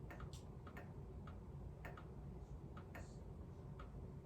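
Faint, light ticking at slightly uneven spacing, roughly two ticks a second, over a low steady hum.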